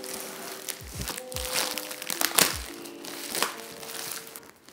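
Plastic packaging crinkling and rustling in sharp bursts as it is pulled out of a cardboard box, loudest about halfway through. It plays over lo-fi background music with a soft kick-drum beat.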